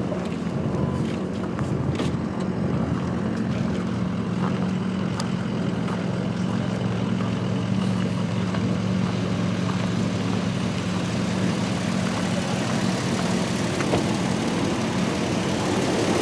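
Vehicle engine idling steadily, a constant low hum with a noisy wash over it.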